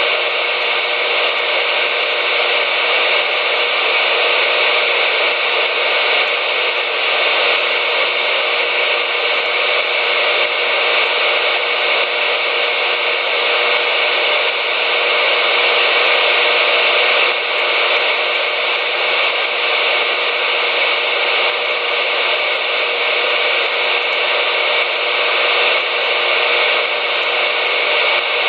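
CB radio on the 11-metre band hissing with loud, steady static from its speaker, unbroken and with no voice on the channel.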